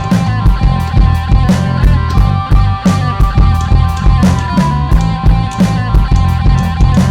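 Rock music with electric guitar and a steady, driving drum-kit beat.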